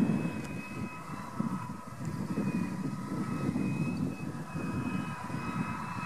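New Holland T6070 tractor's diesel engine running steadily under load while pulling a chisel plough through stubble, a low rumble with a steady high whine above it.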